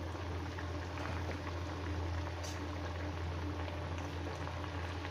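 Aloo puri deep-frying in hot oil in a kadai, the oil sizzling and crackling steadily, over a steady low hum.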